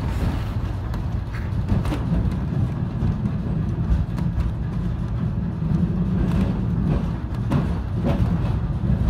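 Electric W class tram running along the track: a steady low rumble of wheels and motor, with a few sharp clicks and knocks from the rails.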